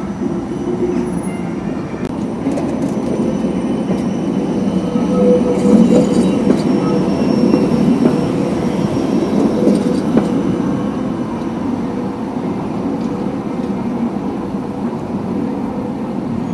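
Transtech Artic low-floor tram rolling past close by on street rails. Its rumble swells to a peak about halfway through, then eases as it moves away.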